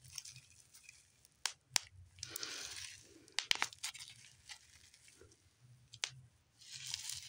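Bubble wrap being squeezed by hand and popped: a few sharp, separate pops, including a quick run of pops in the middle, with crinkling of the plastic in between.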